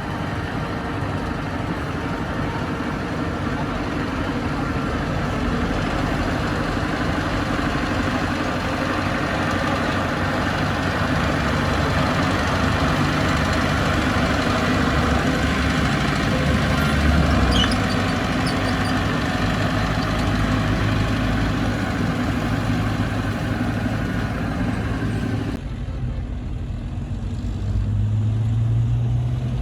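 Bulldozer's diesel engine running steadily. About 26 s in, the sound turns abruptly duller, and near the end the engine's pitch rises as it revs.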